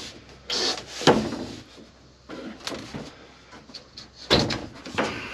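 Thin plywood bunk panel being lifted and shifted on its wooden frame, knocking and scraping against it several times, with the loudest knock about four seconds in.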